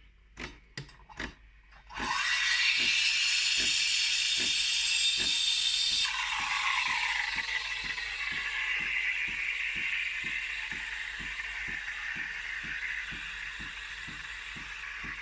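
Nespresso Creatista Plus steam wand frothing milk: a loud hiss starts suddenly after a few clicks, turns softer and lower about four seconds later, with the machine's pump knocking in steady pulses about three times a second underneath.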